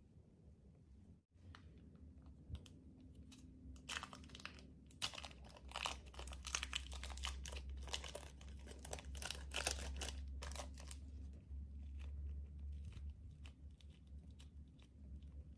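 Thin plastic wrapper crinkling and crackling as it is peeled off a lump of soft clay, with a dense run of crackles in the middle that thins to scattered clicks near the end.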